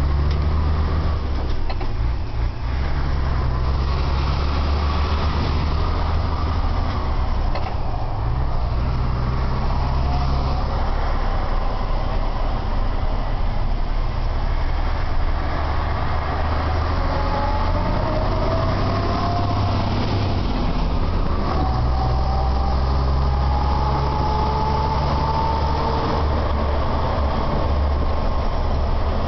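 Lorry's diesel engine running, heard inside the cab while driving, a steady low rumble. Past the middle a whine rises twice as it pulls away.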